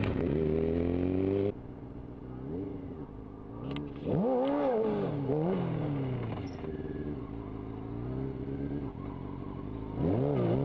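Honda CBR600F4i inline-four sport bike engine revving. The pitch climbs for about a second and a half and cuts off sharply. After a short blip, a loud rev swells and falls back about four seconds in, then a lower, steadier run follows, and the revs rise again near the end.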